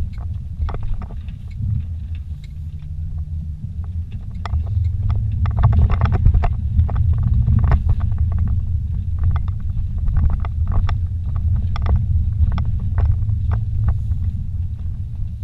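Vehicle driving slowly over a rough, rutted dirt track, heard from inside the cabin: a steady low rumble of engine and tyres with frequent irregular knocks and rattles as it rides over the bumps. It gets louder about four seconds in.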